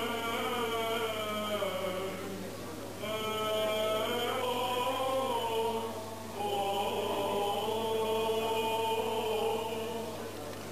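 Orthodox liturgical chant: voices sing long held, slowly shifting notes in three phrases, with short breaks about two and a half and six seconds in, softening near the end.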